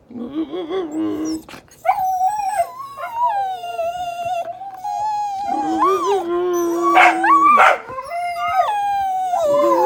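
Two or more pet dogs howling together, long wavering howls that overlap at different pitches. They are begging to be fed.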